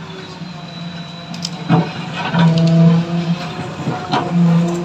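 Diesel engine and hydraulics of a JCB 3DX backhoe loader working the backhoe arm, a steady low drone that swells louder twice as the bucket is lifted from the earth, with a few short clanks.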